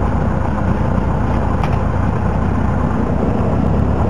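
Small single-engine airplane's piston engine and propeller running at a steady speed, a loud constant drone heard from inside the cockpit.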